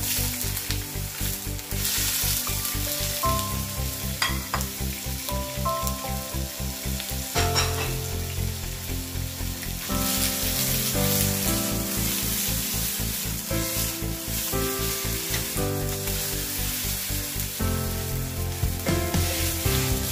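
Sliced mushrooms and chopped onion sizzling in oil in a wok as they are stirred with a wooden spatula and tossed, with a few clicks of the utensils. Background music with a steady beat plays underneath.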